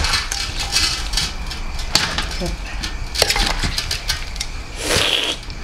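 Cooking utensils scraping and knocking against a pan, a run of irregular clicks, with a louder scrape about five seconds in.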